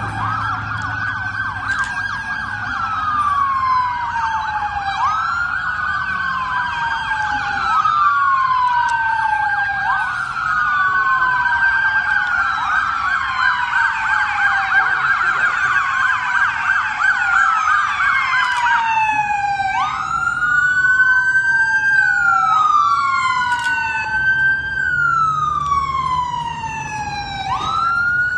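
Several emergency-vehicle sirens, ambulances among them, wailing together as a convoy approaches. Each rises and falls over about two and a half seconds. After about 18 s fewer sirens remain and a single wail stands out, and near the end it switches to quick, short sweeps.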